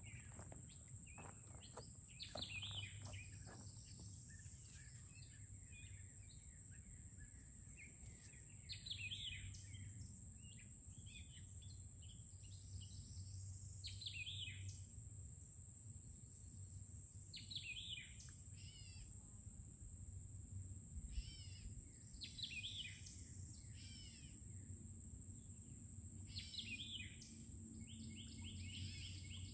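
Wild birds calling faintly in short, quick descending chirp phrases repeated every few seconds, over a steady high-pitched tone.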